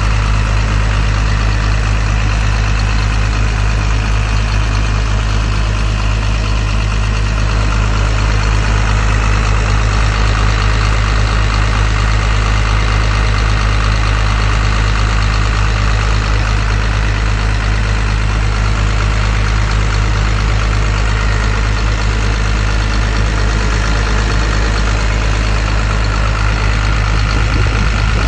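Komatsu PC230-8 excavator's six-cylinder turbodiesel engine running steadily, with a deep, constant rumble.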